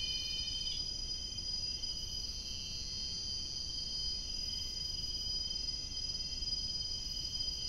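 Steady high-pitched insect chorus in tropical forest, several held tones at once. The lower tones drop out about a second in while the highest carries on, over a faint low rumble.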